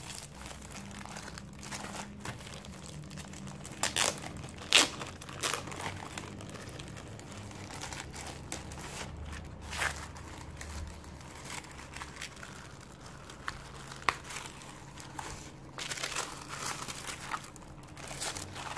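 Clear plastic shrink-wrap crinkling and tearing as it is peeled off a sticker album, with scattered sharp crackles over a low rustle of handling; near the end the album is opened and its tissue paper rustles.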